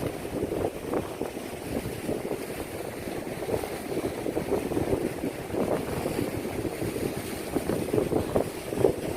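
Steady outdoor wind and water noise at the seashore, with wind buffeting the microphone in gusts.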